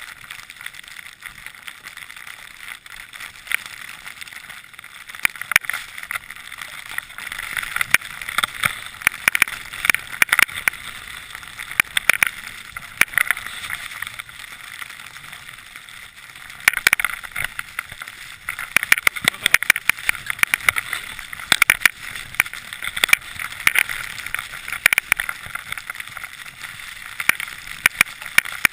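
Skis hissing and scraping over snow during a downhill run, with frequent sharp clicks and knocks along the way.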